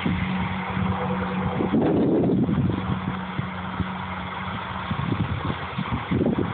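Tractor pulling a hay mower, its engine running with a steady drone, heard under gusts of wind buffeting the phone's microphone.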